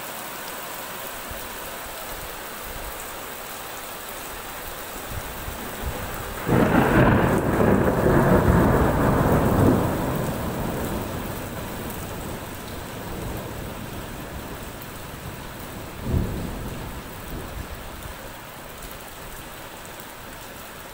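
Heavy rain pouring steadily onto a street. A sudden loud clap of thunder breaks in about six seconds in and rolls on for several seconds before fading slowly, and a short thump comes about two-thirds of the way through.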